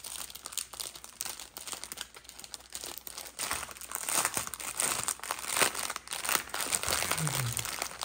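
Plastic bag of diamond painting drill packets crinkling and rustling as it is handled, in an irregular run of crackles.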